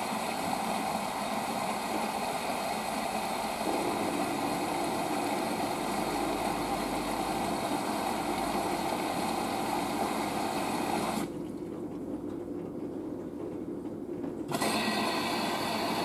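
Dometic WMD1050 compact front-loading washing machine in its wash tumble: the motor runs steadily while the load splashes in the drum. About two thirds of the way through it drops sharply for about three seconds, as the drum pauses, then starts again.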